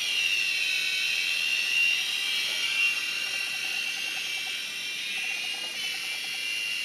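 Kyosho EGG mini RC helicopter's small electric motor and rotor whining steadily in flight. The whine is high-pitched and wavers slightly in pitch.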